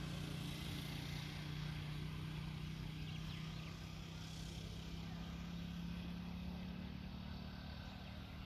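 An engine running steadily at a distance, a low even hum that weakens slightly near the end.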